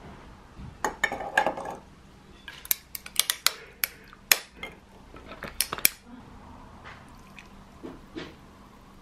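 Ice cubes clinking against a heat-resistant glass mug, a run of sharp clinks over the first six seconds or so as the ice is added and water poured over it. Softer pouring follows as coffee goes in near the end.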